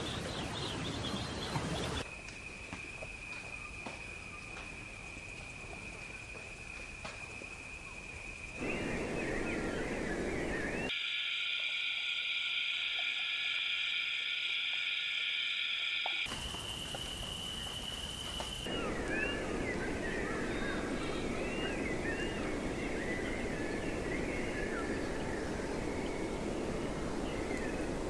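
An edited nature soundtrack that switches every few seconds: small birds chirping and twittering over a steady rushing background, a long steady high-pitched tone held for several seconds, and in the middle a dense, loud, high-pitched chorus with no background beneath it. Near the end, many quick bird chirps return over the rushing background.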